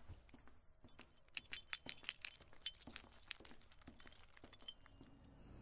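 Light metallic jingling and clinking: a quick run of small ringing clicks, busiest in the first half and thinning out toward the end.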